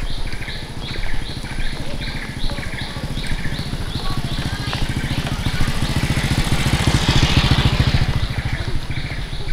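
Small motorcycle engine approaching and passing close by, loudest about two-thirds of the way through. Behind it, a high chirp repeats a few times a second.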